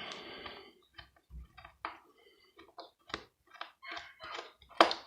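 Screwdriver working the last screw out of a plastic three-plug adaptor casing: a short scrape at the start, then a run of small irregular clicks and ticks, with a few sharper clicks near the end.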